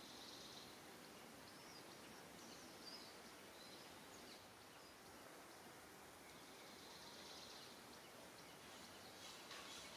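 Near silence: faint outdoor ambience, with a few faint high chirps near the start, about three seconds in and again around seven seconds in.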